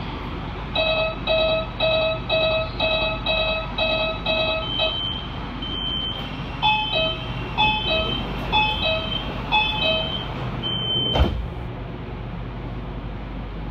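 Metro train door warning beeps over the steady hum of the train: a run of about eight even beeps, roughly two a second, then a pattern of alternating longer high beeps and shorter lower ones. It ends with a single sharp knock about eleven seconds in, typical of the doors shutting.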